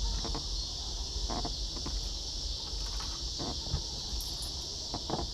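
Steady high-pitched insect chorus, with a few faint clicks and light knocks of small parts being handled.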